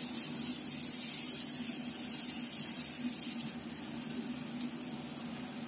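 Steady hiss of hot oil frying in a wok on a gas stove, with a faint low hum underneath.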